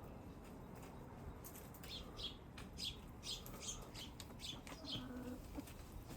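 Chickens giving a run of short, soft, high chirps, two or three a second, for a few seconds in the middle.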